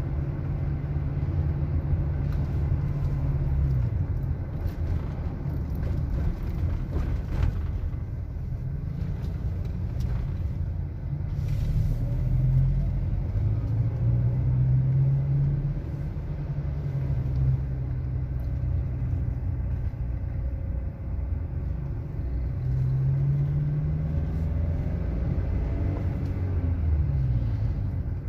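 Engine and road noise of a moving motor vehicle, the low engine note rising and falling as it speeds up and slows. It gets louder for a few seconds about halfway through, while passing through a concrete underpass.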